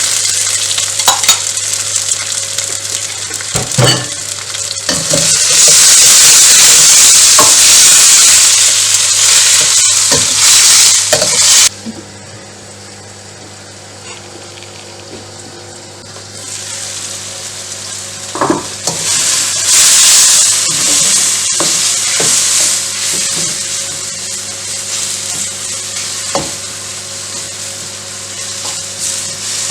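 Food sizzling in a hot frying pan while being stirred, with a spatula knocking against the pan now and then. The sizzle drops sharply about twelve seconds in, then builds up again a few seconds later.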